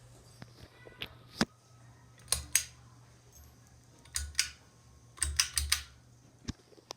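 Steady low hum from a running ceiling fan, with scattered sharp clicks and light knocks on top, several coming in quick pairs and a tight cluster of about four clicks past the middle.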